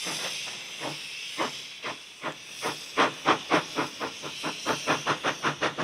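Saddle-tank steam locomotive pulling away: steam hissing, then exhaust chuffs that start about a second in and quicken steadily to several a second.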